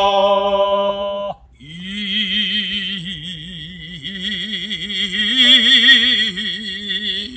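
A man's voice chanting long held tones. The first breaks off just over a second in, and after a breath a second long tone follows with a wide, slow vibrato of about three wavers a second, rising a little in pitch around the middle.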